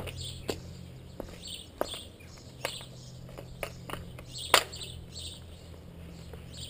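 Irregular sharp clicks and knocks from a cyclist handling a road bike, picked up by a chest-mounted camera, the loudest about four and a half seconds in. Under them runs a low steady hum, with birds chirping faintly.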